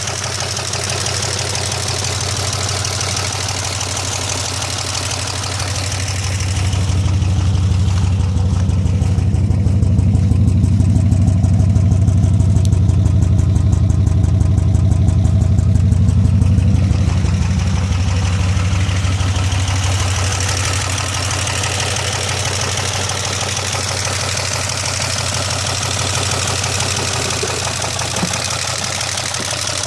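2002 Pontiac Bonneville SE's 3.8-litre V6 running with a steady, rapid pulsing beat, louder for a stretch in the middle. It runs after the oil-pressure gauge read zero on a long highway drive, and the owner takes the noise as a sign the engine is ruined.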